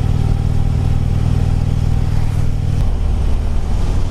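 Harley-Davidson touring motorcycle's V-twin engine running steadily under way, with wind rush. About three seconds in, the engine note drops lower.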